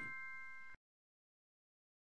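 The last notes of a bell-like chime ring on and fade, then cut off sharply under a second in, leaving dead silence.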